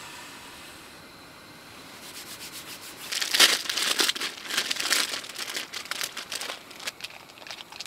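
Plastic food packet crinkling as it is handled: a soft rustle at first, then a dense run of crackly rustles from about three seconds in, thinning out near the end.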